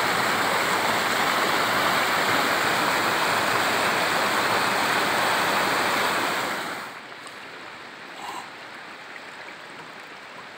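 Shallow mountain river rushing over stones in rapids, a loud steady rush of water that drops suddenly to a much quieter, gentler flow about seven seconds in.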